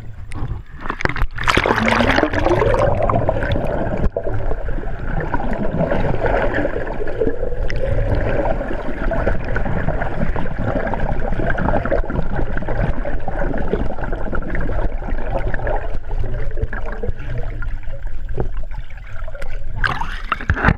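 Underwater sound of a swimming pool heard through a submerged camera: muffled churning and gurgling of water and bubbles as a swimmer kicks with fins, with a steady tone underneath. Near the end the camera breaks the surface and the sound opens up into splashing.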